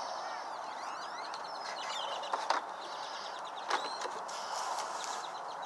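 Birds chirping in short rising and falling calls over a steady background hiss, with two sharp clicks about two and a half and nearly four seconds in as plastic packaging is worked to free an action figure.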